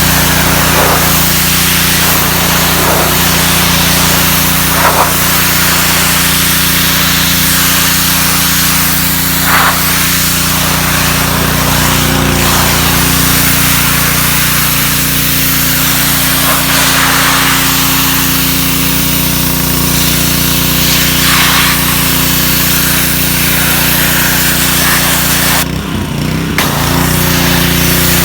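Ryobi pressure washer's Honda GCV160 single-cylinder engine running steadily under load while the wand sprays high-pressure water with a constant hiss. Near the end the spray cuts out for about a second and the engine note dips, then both pick up again.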